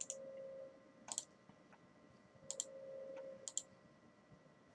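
Faint computer mouse clicks: four short clicks or quick double-clicks about a second apart. A faint hum swells twice between them.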